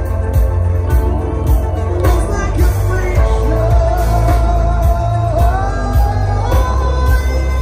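Heavy metal band playing live: distorted electric guitars, bass and drums with a sung vocal line that holds long notes and climbs in pitch toward the end.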